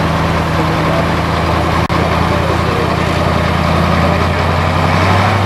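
Six-wheel-drive trial truck's diesel engine running steadily under load as it crawls over the course, its note a little louder near the end.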